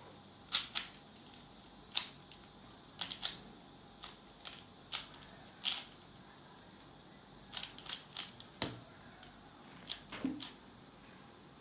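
Rubik's Cube being turned by hand during a solve: irregular plastic clicks and clacks of the layers snapping round, some single, some in quick runs of two or three.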